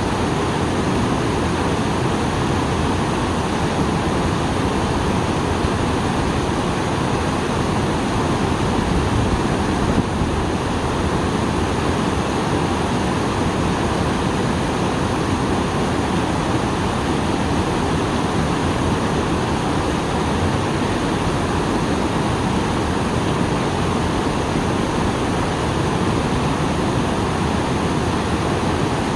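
Small waterfall rushing, swollen after rain: a steady, dense roar of falling water.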